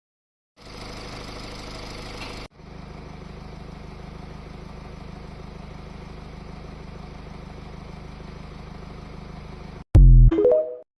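Mercedes E220d's OM654 four-cylinder diesel engine idling steadily, in two clips joined a couple of seconds in. Near the end a brief, much louder sound with stepping pitch cuts in.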